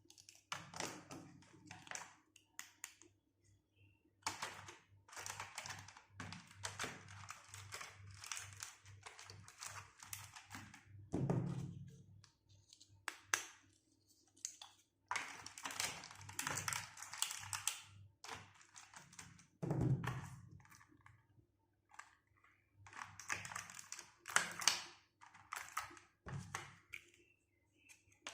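Small plastic pieces of a toy doctor set being handled and set down: irregular taps, clicks and thunks between stretches of rustling, as of packaging being opened.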